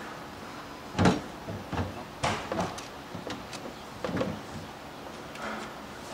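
Hollow plastic water tank of a concrete grinder knocking and scraping against the machine's frame as it is set back in place: one loud knock about a second in, then a string of lighter knocks and clatters over the next few seconds.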